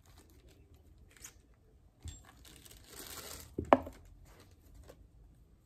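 Packaging being handled: a light click about two seconds in, then crinkling and rustling for about a second, ending in one sharp knock.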